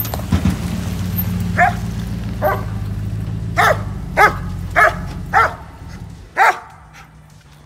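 A 2016 Ram 1500's 5.7 Hemi V8 running through its new aftermarket muffler as the truck rolls in and stops, the low exhaust rumble dropping away about six seconds in. Over it a dog barks about seven times, each bark short and loud.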